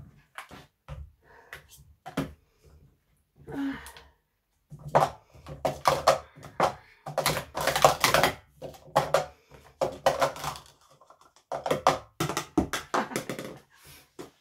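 Plastic sport-stacking cups clattering as they are rapidly stacked up and down on a stacking mat. A fast run of sharp clacks and taps, light and sparse at first, then dense and louder from about five seconds in.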